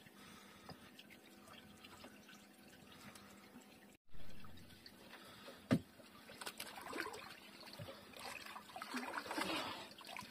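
Water trickling and dripping as a wet fishing longline is hauled by hand over the side of a small boat, busier in the second half, with a single sharp knock a little past halfway.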